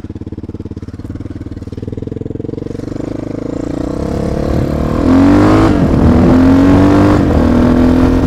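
Suzuki DR650's single-cylinder four-stroke engine chugging at low speed, then accelerating hard. It gets much louder about five seconds in, its pitch climbing and dropping back twice as it shifts up through the gears.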